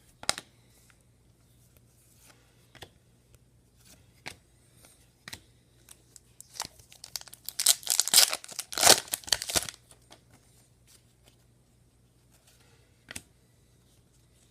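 Trading cards and their plastic packaging being handled on a table, with scattered light clicks and a loud crinkling, tearing rustle from about six and a half to ten seconds in.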